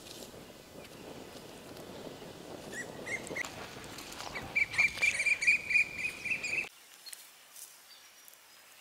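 Cashew nuts crackling as they roast in an open fire. From about a third of the way in, a bird calls over it in quick, repeated, high chirping notes. Both cut off suddenly about two-thirds of the way through.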